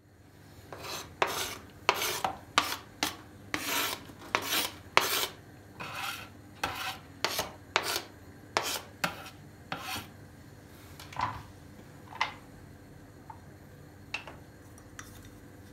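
Knife blade scraping minced garlic off a plastic cutting board into a bowl, in about twenty short scraping strokes at roughly two a second. Then a few scattered light knocks.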